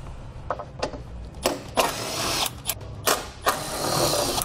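Power driver with a 10 mm socket running in two bursts of about a second each, spinning out the plastic panel's 10 mm fasteners, with a few clicks and knocks of the tool against the panel between them.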